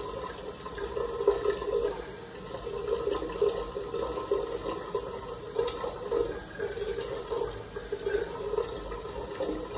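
Water running steadily in a bathroom, a continuous rushing flow that wavers a little in strength.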